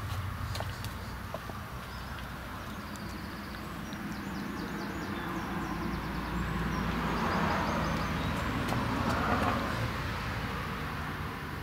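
A motor vehicle's noise swelling about six seconds in and easing off near the end, over a steady low hum.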